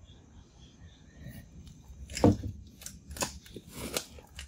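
Light wooden knocking and clatter from a frame of thin eucalyptus sticks being handled and lifted: half a dozen short, sharp knocks from about halfway in, the first the loudest.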